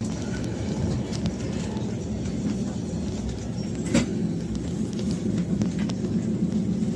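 Passenger train running along the track: a steady low rumble with scattered faint clicks, and one sharper knock about four seconds in.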